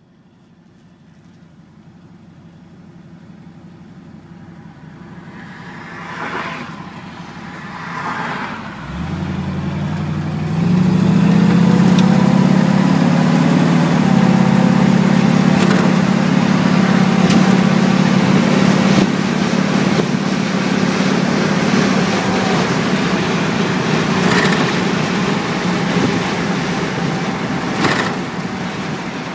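A 1936 Ford truck with a 302 V8 and C4 automatic, driving at road speed: the V8's note climbs as the truck accelerates and then holds steady under a loud rush of wind and road noise that builds over the first third.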